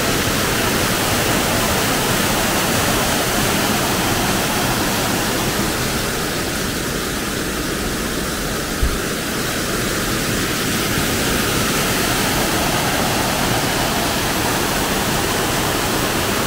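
Steady rushing of a waterfall, with one brief low thump about halfway through.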